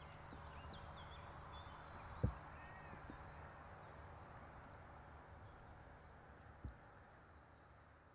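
Faint outdoor ambience with a steady low hum and a few distant bird calls, broken by two dull thumps, one about two seconds in and another about four seconds later; it fades out near the end.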